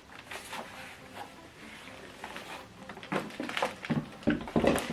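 Handling noises from a power cable being fitted to a soundbar: light rustling with scattered clicks and knocks, busier and louder in the second half.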